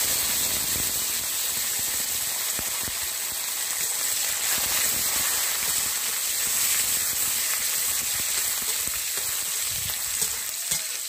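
Spice tempering sizzling steadily in hot oil in a kadai: mustard seeds, dried red chilli, cumin, curry leaves and freshly added ginger frying.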